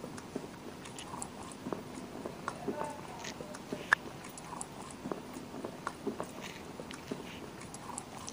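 Plastic spoon stirring and scraping wet red clay paste in a terracotta pot, with irregular small clicks and taps as it knocks against slate pencil pieces; the sharpest click comes about four seconds in.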